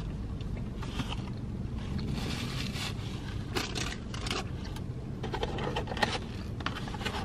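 Cardboard fast-food box and paper wrappers rustling and scraping as they are handled, a quick run of short crackles through the second half, over a steady low hum.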